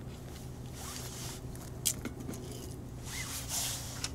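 Handling noises: short rustling scrapes about a second in and again near the end, and a sharp click about two seconds in, over a low steady hum.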